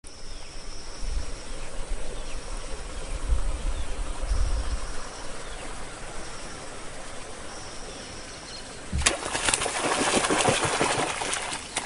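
Outdoor ambience with a low rumble and a high buzzing tone that comes and goes every couple of seconds. About nine seconds in, a sudden loud burst of rustling, thrashing noise with sharp clatters starts and goes on.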